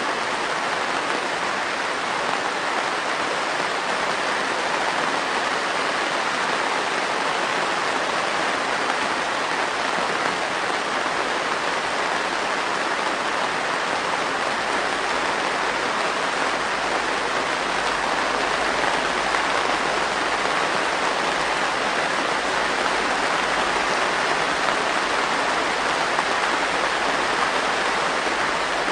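Heavy rain pelting a greenhouse roof and panes, a dense, steady hiss of countless drops striking the glazing.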